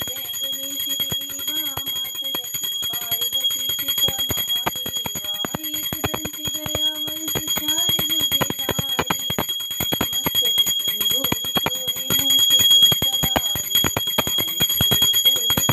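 Small brass puja hand bell rung rapidly and without a break, a steady high ringing with quick strikes, while a woman's voice sings an aarti hymn over it.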